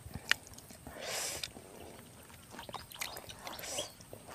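Quiet hand-eating sounds: fingers pressing and mixing rice with eel sambal on a banana leaf, with soft squishes and small clicks, and two short breathy sounds about a second in and near the end.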